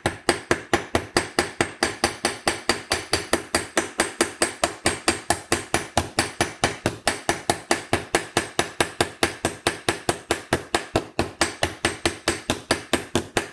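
Ball-peen hammer rapidly tapping a copper rivet backed by an anvil, about five even strikes a second, each with a short metallic ring. The rivet head is being peened out into a rounded dome.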